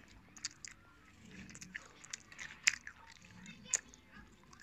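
Scattered sharp clicks and crunches close to the microphone, the loudest about two and a half seconds in and another near the end, over faint screaming from a film playing on a TV.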